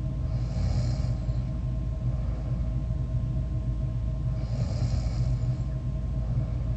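A sleeping person snoring: a low rumbling snore with two hissing breaths, one about half a second in and another about four seconds later.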